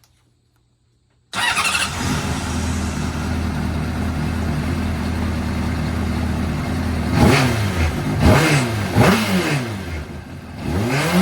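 2005 Honda CBR600RR's inline-four engine, freshly rebuilt with a new cam timing chain, starting about a second in with a sudden burst and settling into a steady idle. Near the end it is blipped three times in quick succession and once more, each rev rising and falling in pitch.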